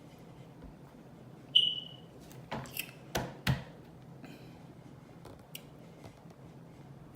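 A short high squeak about one and a half seconds in, then a quick cluster of sharp clicks and knocks from a plastic 2-liter soda bottle being handled while drinking.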